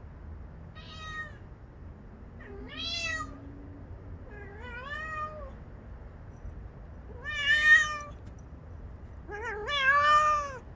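Domestic cat meowing five times, a couple of seconds apart. Each meow is a drawn-out call that rises and falls in pitch, and the last two are the loudest. A steady low hiss runs underneath.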